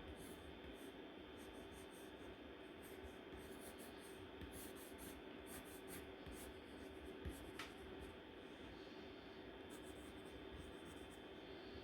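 Faint, irregular scratching of drawing strokes on a surface, short strokes coming in quick clusters, over a steady low background hum.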